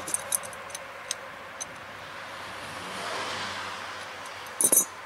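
Light clicks and taps of gloved hands working the cap and oil drain hose at the base of a standby generator, with a louder short clatter near the end, over steady background hiss.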